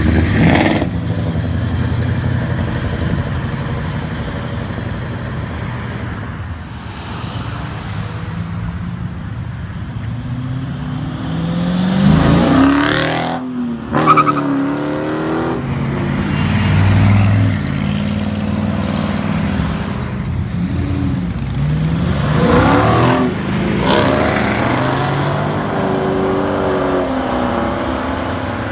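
Dodge Challenger V8s, an SRT 392 and a Super Bee, rumbling loudly, then accelerating hard past twice: about twelve seconds in and again about twenty-three seconds in, the engine note climbs sharply through the gears and swells, then fades as the car moves away.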